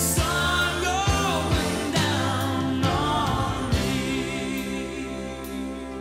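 Background music: a slow song with a singing voice over sustained instrumental chords; the voice drops out about four seconds in and the accompaniment carries on.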